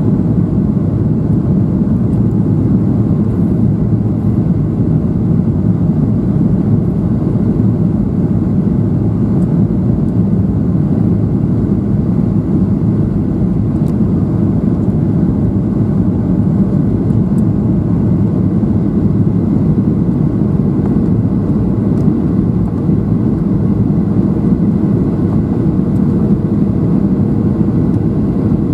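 Steady cabin roar of a Boeing 737-700 on its approach descent, heard from a seat over the wing: CFM56-7B engine and airflow noise, heaviest in the low range, with a faint high steady whine.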